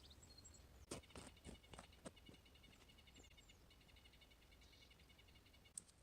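Faint insect chirping, cricket-like rapid pulsed trills in two long runs, with a few soft clicks or knocks about a second in and one more near the end.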